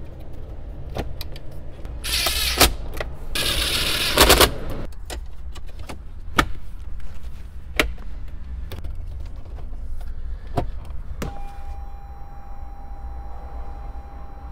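Plastic dash air vents and trim panels being pressed and snapped into a Toyota Highlander's dashboard: a string of sharp clicks and knocks, with two short spells of plastic scraping about two and four seconds in. Near the end a steady electronic tone sounds.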